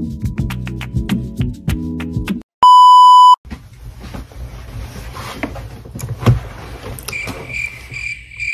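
A short stretch of music cuts off and is followed by a loud, steady, edited-in beep tone lasting just under a second, like a censor bleep. After the beep comes rustling room noise with a single knock about six seconds in, and near the end a pulsing high tone.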